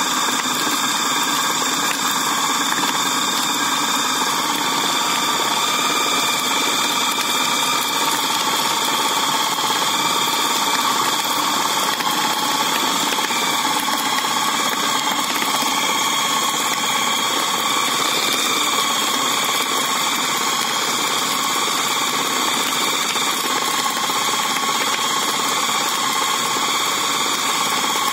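Electric food chopper's motor running steadily, its blades churning raw chicken into a smooth paste for bakso.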